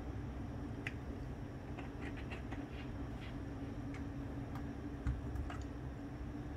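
A steady low hum with scattered light clicks and taps through it, one sharper knock about five seconds in.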